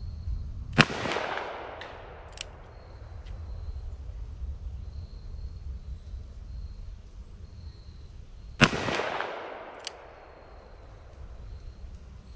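Two shots from a Ruger Blackhawk .45 Colt revolver firing 255-grain Keith semi-wadcutter handloads, about eight seconds apart, each a sharp crack with an echo fading over about a second. A short sharp click follows each shot about a second and a half later.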